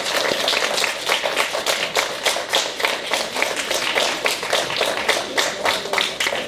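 A small crowd applauding, many hands clapping in a dense, irregular patter that begins to thin out near the end.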